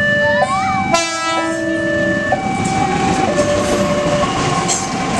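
A railway level-crossing alarm keeps up its alternating two-tone warning while a diesel locomotive hauling passenger coaches passes over the crossing. About a second in, the locomotive's horn sounds briefly. After that the rumble and clack of the wheels on the rails runs underneath the alarm.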